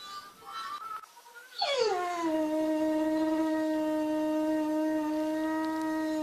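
Boxer dog howling: one long howl that starts about one and a half seconds in, slides down in pitch, then holds steady for over four seconds and breaks off at the end.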